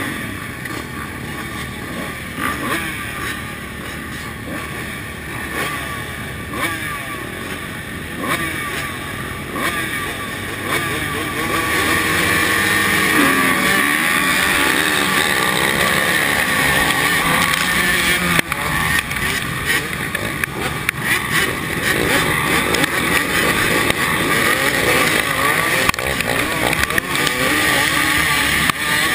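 A gate full of 125cc two-stroke motocross bikes revving at the start, heard from the rider's own bike; about eleven seconds in the engines get much louder and stay at full throttle as the pack launches and races into the first turn.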